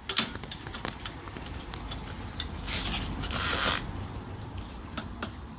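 Handling noises from a folding electric bike being assembled: a few light clicks and knocks, and a rustling scrape lasting about a second midway through.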